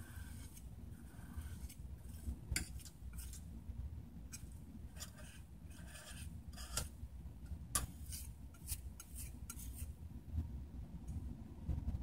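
A plastic scraper scraping thermal paste residue off the metal heat spreaders of a PS3's chips. It goes in short, irregular strokes with a couple of sharp clicks.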